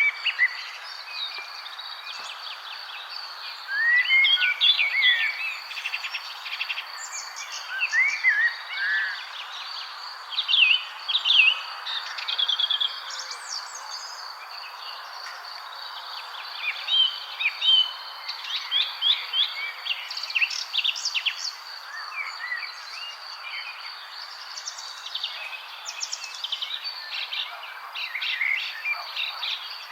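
Several songbirds chirping and singing in short, quick phrases, overlapping now and then, over a steady high insect trill and a soft background hiss.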